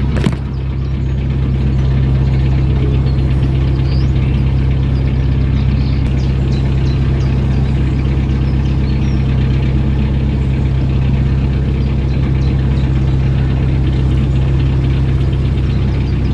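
Narrowboat engine running steadily under way, a constant low drone. One short knock just after the start.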